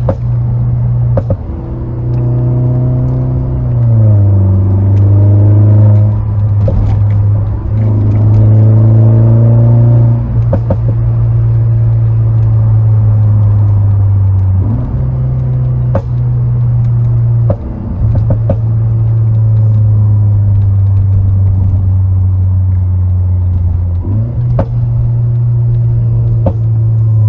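Exhaust of a 2013 Mercedes-Benz SLK 200 (R172) with its 1.8-litre turbo four-cylinder running, the engine note held steady, dropping in pitch about four seconds in and rising again twice later. Scattered sharp pops sound through it, the crackle that its ECU pop tune is set to make.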